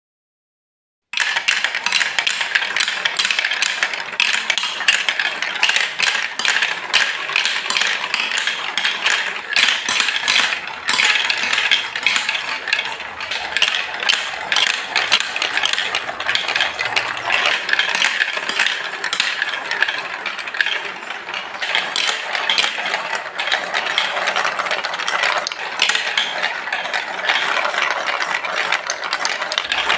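Marbles rolling and clattering along a plastic Lego Duplo block track, a dense stream of fast clicks that starts suddenly about a second in and runs on without a break.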